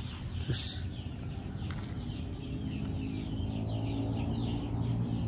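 Yard birds chirping in quick, repeated short downward calls, with chickens clucking. A low hum grows louder from about three seconds in.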